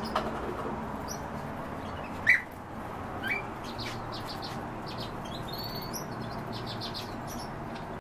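Cage birds chirping: scattered short calls, a loud one about two seconds in and another a second later, then a quick run of high chirps and short trills in the second half.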